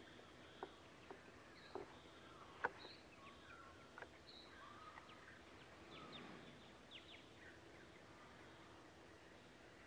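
Faint outdoor ambience with scattered short bird-like chirps and a few soft clicks, the sharpest click about two and a half seconds in.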